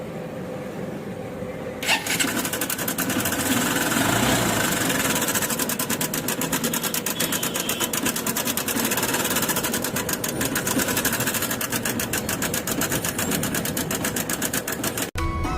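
Honda Shine 125 cc single-cylinder motorcycle engine running with a rapid, even mechanical ticking clatter, the irritating engine noise the owner wants fixed. It gets louder about two seconds in and cuts off suddenly near the end.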